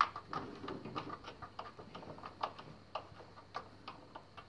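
Irregular light clicks and taps, a few a second, as the knobs under a Hamanaka knitting machine's bed are screwed back in to hold the front bed on.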